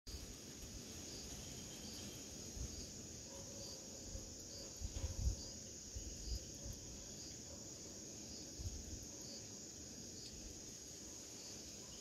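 Night insect chorus: a steady high-pitched trill, with a short chirp repeating about once a second. A few brief low thumps on the microphone are the loudest sounds.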